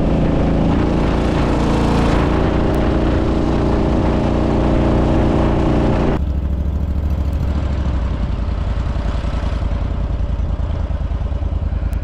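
Jon boat's outboard motor running under throttle, then eased off abruptly about six seconds in to a quieter, lower run.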